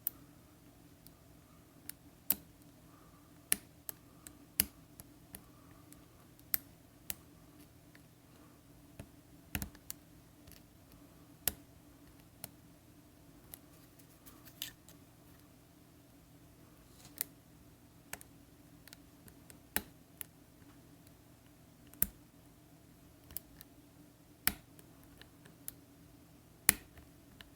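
Irregular sharp clicks and light scrapes of a lock pick and tension wrench working the wafers of an Illinois DUO triple-bitted wafer padlock, about one click a second, over a faint steady hum.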